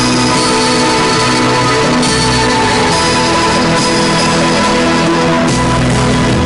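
Loud instrumental theme music of a TV news programme's opening, made of held chords that change about two seconds in and again near the end.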